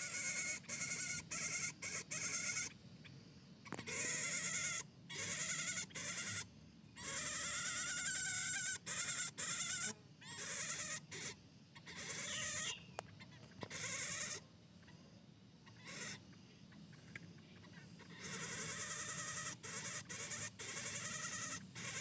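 Lesser coucal giving its harsh, rasping 'mbeset-mbeset' call over and over, in buzzy bursts lasting from half a second to about two seconds with short gaps between them.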